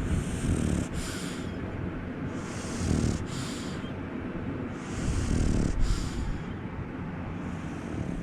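French bulldog snoring and snorting: four noisy breaths about two and a half seconds apart, each a low rattling snore with a high hiss through the nose.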